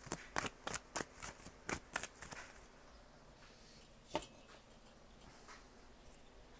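A deck of tarot cards being shuffled by hand, a quick irregular run of crisp card clicks for the first two seconds or so, then one single knock about four seconds in.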